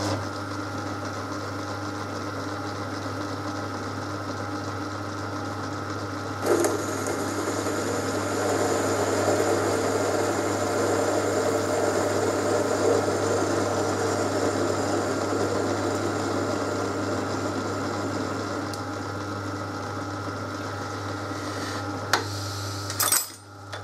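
Metal lathe running with a steady hum. From about six seconds in, a cutting tool trims the spinning workpiece, adding a rough cutting noise. The lathe stops shortly before the end.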